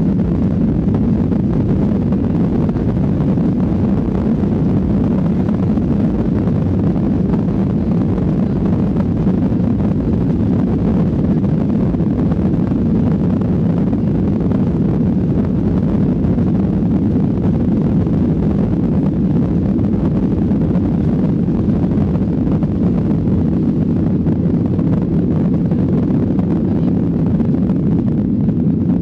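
Boeing 737-800 jet engines at takeoff power, heard inside the cabin as a loud, steady low rumble during the takeoff roll.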